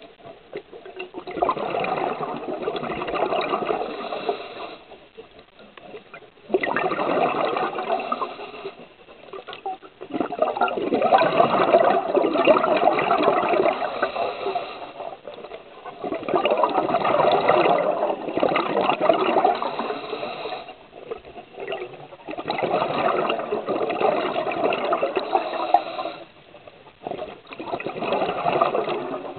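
Scuba diver's exhaled breath bubbling out of the regulator, heard underwater through the camera housing. About six long bubbling gushes of a few seconds each come at a steady breathing pace, with short quieter gaps between them while the diver breathes in.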